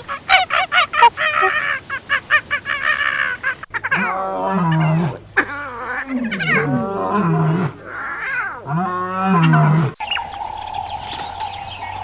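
Animal calls in three parts: first a quick run of short chirping calls, then three long, pitched calls that rise and fall, and near the end a steady high-pitched hum.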